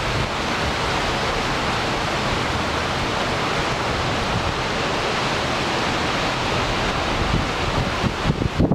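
Heavy typhoon rain driven by strong wind, pounding down in a dense, steady hiss. Near the end, gusts buffet the microphone.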